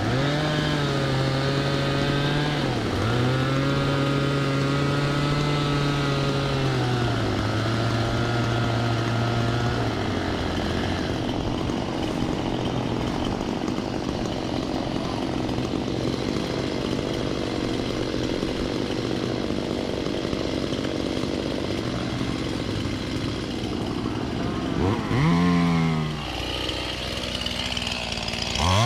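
A small engine running at high revs, its pitch wavering and dipping through the first ten seconds and rougher in the middle. It gives two quick rev-ups near the end.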